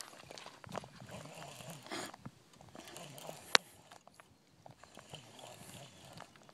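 Faint, irregular clicks and knocks, with one sharper click about three and a half seconds in.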